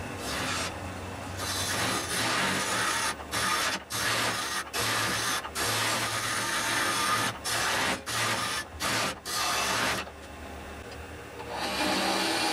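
Wood lathe running while a bent hollowing tool scrapes out the inside of a spinning wooden vessel. There is a rough hiss of cutting over a steady low motor hum, broken by brief gaps roughly every second as the tool lifts off. A pause of about a second and a half comes near the end, then the cutting starts again.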